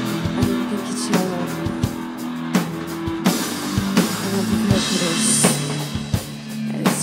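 A rock band playing live: drum kit with regular kick and snare hits over electric guitar, bass guitar and keyboard.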